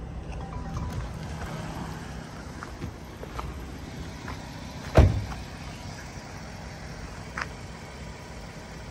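The door of a 2018 Jaguar F-Type 400 Sport convertible is shut about five seconds in: a single heavy thump. A steady low rumble and a few faint clicks lie around it.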